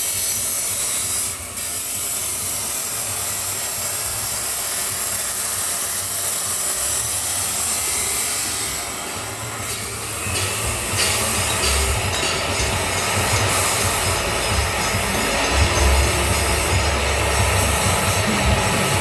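Grinder cutting through stainless steel pipe: a steady, loud, high-pitched hiss of the disc in the metal, with a short break about a second and a half in. A low rumble joins about halfway through.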